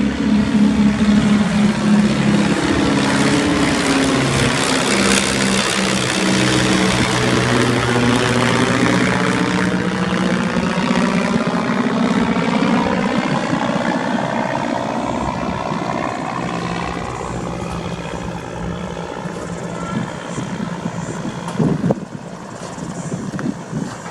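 Propeller aircraft flying low past and overhead: a steady engine drone, loudest in the first half, that fades away over the last several seconds.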